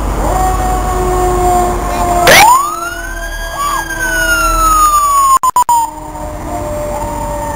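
Emergency-vehicle siren sounding in a parade: a fast, loud rising whoop about two seconds in, then a slow falling wail, over steady lower tones and engine rumble. The sound drops out a few times for an instant in the middle.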